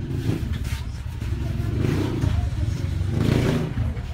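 A motor engine running with a steady low rumble, swelling about two seconds in and again, louder, a little after three seconds.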